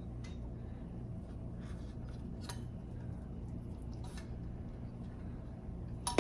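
Steady low room hum with a few faint clicks and taps from the small airbrush compressor being handled; the compressor itself is not running.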